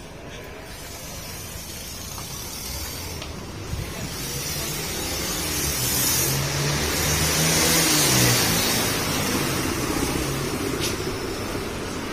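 A motor vehicle passing on the city street. Its engine and tyre noise builds steadily, is loudest about eight seconds in, then eases off.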